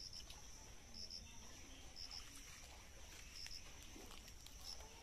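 Faint, steady high-pitched insect drone, with short double chirps about once a second.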